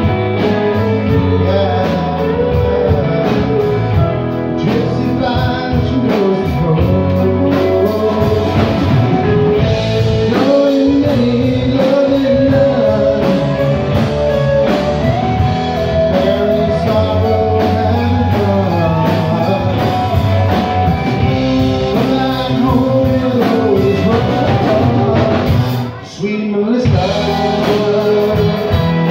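Rock music with electric guitar and a singing voice, played loud with a steady beat; it drops out briefly near the end.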